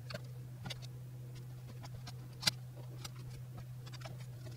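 Faint clicks and taps of hands handling plastic parts and wiring behind a car's dashboard, with one sharper click about two and a half seconds in, over a steady low hum.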